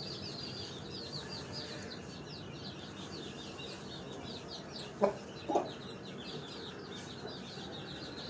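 Chickens calling: quick high-pitched chirps repeat throughout, and two short, louder clucks come about five seconds in.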